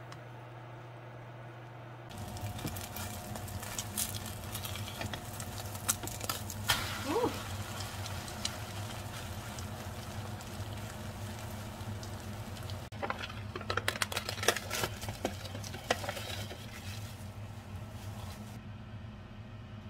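Chicken-breast and cabbage okonomiyaki sizzling as it fries in a frying pan, starting about two seconds in, with a wooden spatula scraping and tapping against the pan. A steady low hum runs underneath, and the sizzling drops away near the end.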